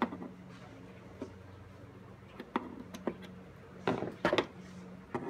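Sharp, irregular plastic clicks and snaps as push-pin retainer clips are pried out of a 2015–2017 Ford Mustang's plastic radiator cover with a screwdriver, a quick cluster of them about four seconds in. A faint steady hum lies underneath.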